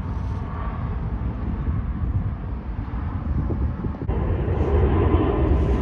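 Jet airliner engines rumbling steadily as the plane climbs away after takeoff. About four seconds in, the sound breaks off and a louder jet rumble from another departing airliner starts at once.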